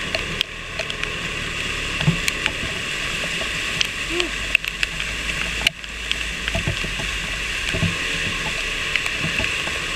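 A KTM 390 Adventure's single-cylinder engine runs steadily in first gear with the throttle held open while the motorcycle wades through flowing floodwater. Water hisses and splashes against the bike, with scattered sharp splashes.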